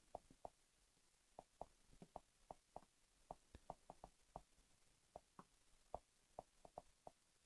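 Faint, irregular taps and clicks of a stylus on a tablet while words are hand-written, a few every second.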